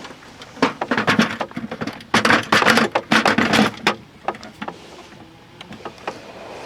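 A plastic water bucket is pushed into a dehumidifier, with a few hard plastic knocks, then a couple of seconds of scraping and clattering as it slides in and seats, and then a few small clicks.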